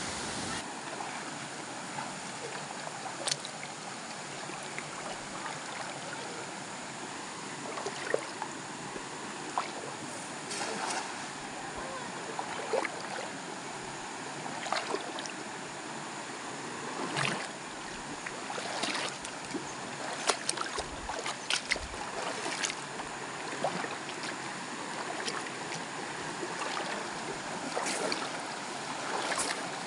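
Steady rush of a shallow rocky river, with scattered splashes and knocks from someone wading and handling a fishing net in the water, more frequent in the second half.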